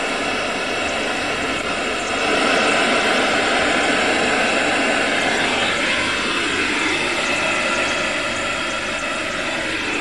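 Steady rushing noise from an electronic transcommunication apparatus played through a loudspeaker, the hiss into which the experimenters hope voices will break. It gets a little louder about two seconds in, as the device is turned up.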